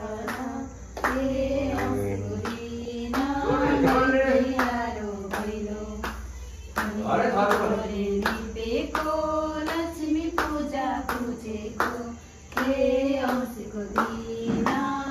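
A small group singing a song together, accompanied by regular hand clapping in time.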